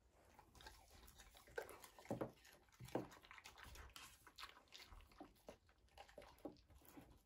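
German Shepherd dogs eating small pieces of food off a tabletop: a run of irregular soft smacks, clicks and taps of mouths and food on the table, loudest in the second and third seconds.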